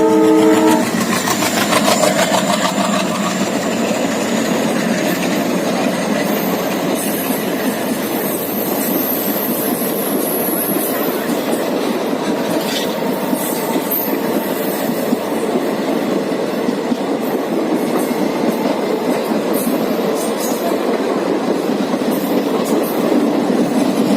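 Locomotive horn's last note cutting off about a second in, then a passenger express running past at speed, its coaches rattling and clattering over the rail joints with a steady rush of wheel noise.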